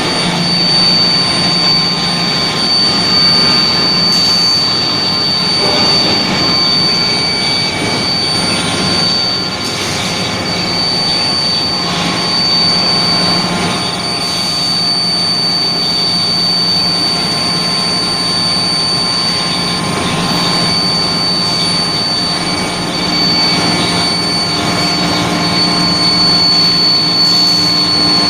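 Steel plate induction hardening line running: a steady high whine over a constant, dense machine drone.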